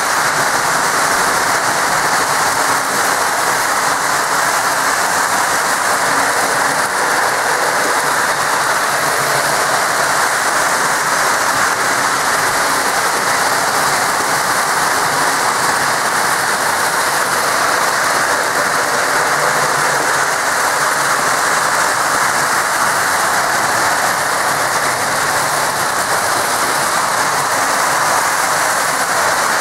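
Several Lionel O-gauge electric toy trains running at once on three-rail metal track: a steady, even whir and rattle of motors and wheels.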